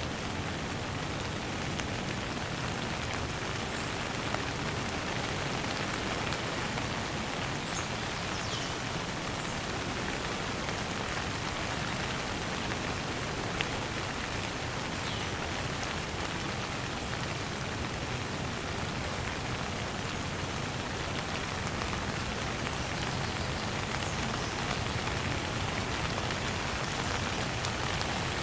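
Steady rain falling, an even continuous hiss of drops on surfaces, with a few faint, short high chirps now and then.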